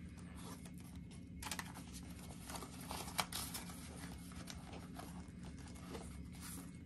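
Paper banknotes and a clear plastic binder pocket rustling and crinkling faintly as bills are slid into the pocket, with a few light clicks and taps from handling.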